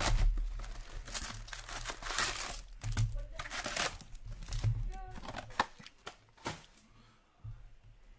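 Plastic wrapping and foil hockey card packs crinkling and rustling as an O-Pee-Chee Platinum box is torn open and the packs pulled out, in irregular handling noises that quieten near the end.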